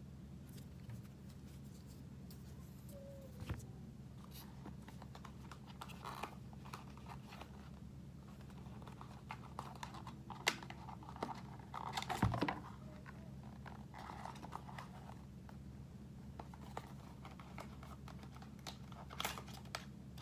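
Packaging being handled as the phone box is emptied: scattered rustles, clicks and taps, loudest around ten to twelve seconds in, over a steady low hum.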